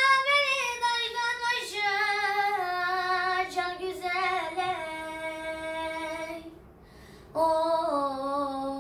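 A boy singing a Turkish folk song (türkü) unaccompanied. A long, ornamented phrase falls gradually in pitch, breaks for a breath about six and a half seconds in, then a new phrase starts and settles on a long held note.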